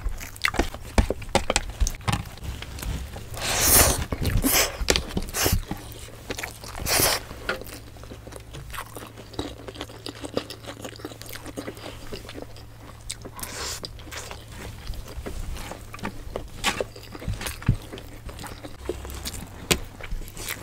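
Close-miked chewing and biting of crispy fried vegetable spring rolls (lumpia), with wet mouth sounds and louder crunches about 4 and 7 seconds in.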